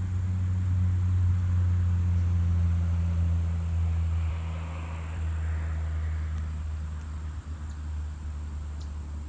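A low, steady engine hum that slowly fades away near the end, with a soft hiss swelling and dying in the middle.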